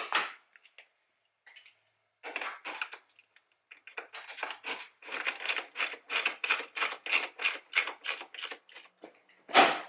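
Hand work fitting a turn-signal bulb into a car's rear light: a few scattered clicks, then a fast, even run of clicks, about five a second, lasting several seconds, and one loud knock near the end.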